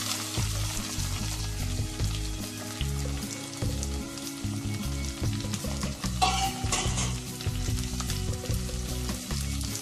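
Sliced onions sizzling in hot oil in a clay pot, stirred with a spoon at the start, then left to fry.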